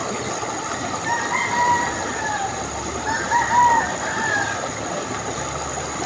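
A rooster crowing twice, about a second in and again about three seconds in, each crow a drawn-out call, over a steady background hiss.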